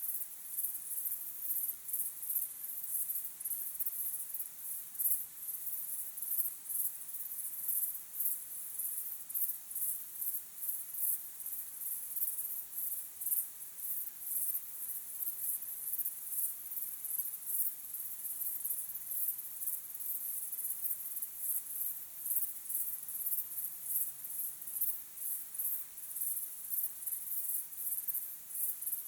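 Chorus of crickets chirping, a steady high-pitched pulsing that goes on without a break.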